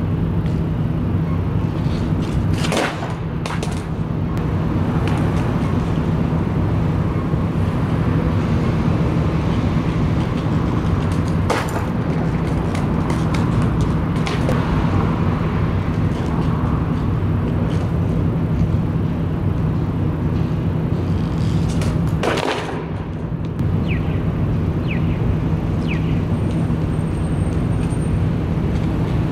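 Skateboard on a concrete ledge and brick sidewalk: a few sharp clacks of the board hitting down, about three seconds in, near twelve seconds and near twenty-two seconds, over a steady, loud low city rumble.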